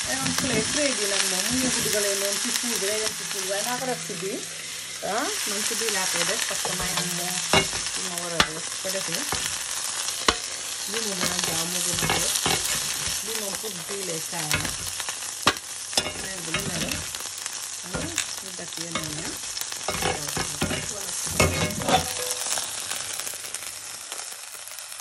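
Stuffed beef rolls searing in hot oil on a cast-iron grill pan: a steady sizzle with crackling and spitting, broken by scattered sharp clicks and scrapes of metal utensils against the pan. The sizzle grows quieter in the last few seconds.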